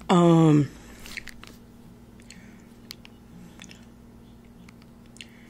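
A woman's short, loud vocal 'ohh' that falls in pitch, followed by a few faint scattered clicks.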